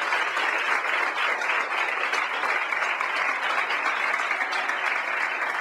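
A crowd applauding, a steady round of clapping from many hands.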